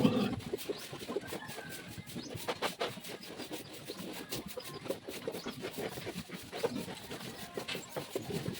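Pigs in a pen making short, irregular grunts and knocks, loudest at the very start, from a sow close to farrowing.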